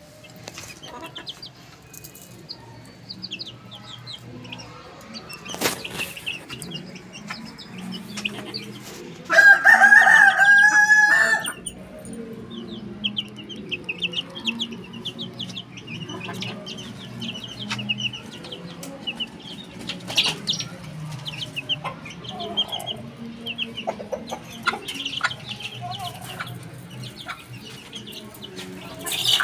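Chickens: a rooster crows once, a loud held call lasting about two seconds a third of the way in. Young chicks peep in quick, short, high cheeps through the rest, with a few clucks.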